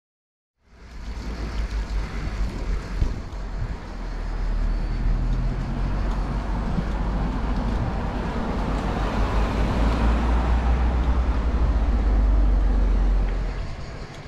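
A motor vehicle on the road close by, its engine running over a heavy low rumble that starts abruptly about half a second in, swells and then drops away near the end.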